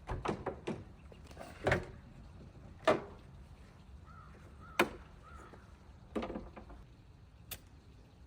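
Metal clicks and clunks, about half a dozen spread over several seconds, as the Jeep's hood is unlatched and opened. A bird calls faintly three times near the middle.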